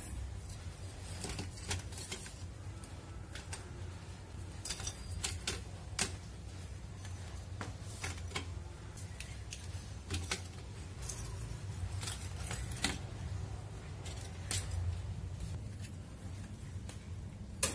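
Lumps of charcoal being set down one by one on a steel wire stand hung with metal chains inside a clay flower pot: irregular sharp clinks and knocks of charcoal on metal and chain, over a steady low rumble.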